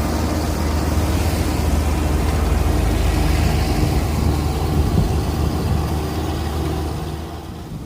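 Combine harvester engine running steadily, easing off somewhat near the end.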